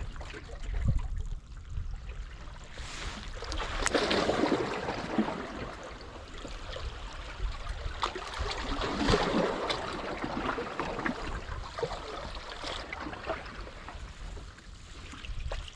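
Seawater washing among the boulders of a rocky breakwater, swelling up twice as waves surge in and draining back, with scattered small ticks.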